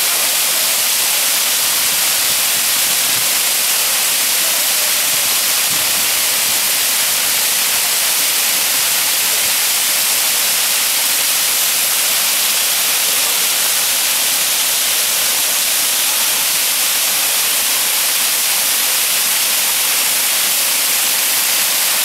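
Waterfall, several streams pouring over rock ledges into a pool: a steady, even rush of falling water.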